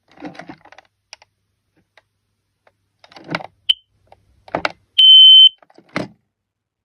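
Ei207 carbon monoxide alarm: a very short chirp, then one loud, steady, high-pitched beep lasting about half a second, amid plastic clicks and knocks from the unit being handled. The alarm has just shown a fault light yet still sounds, which the owner takes to mean it still works.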